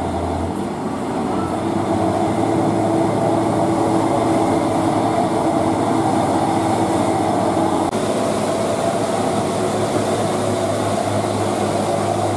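Diesel engines of two Hino 500 dump trucks droning steadily as they run side by side. The sound shifts slightly about eight seconds in.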